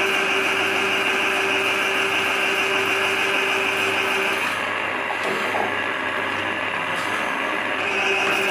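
Drain cleaning machine turning a spiral cable down a clogged floor drain: a steady motor whine with the cable rattling. The whine drops away about four and a half seconds in and comes back near the end.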